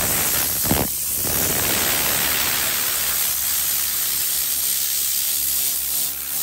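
Compressed-air cleaning gun blowing a steady hiss of air and cleaner mist onto a leather car seat, easing briefly about a second in and again near the end.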